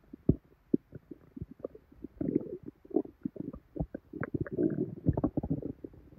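Human stomach and intestines bubbling and gurgling: a run of short pops and squelches, with longer bubbling rumbles about two, three and five seconds in, from a severely bloated, painful belly.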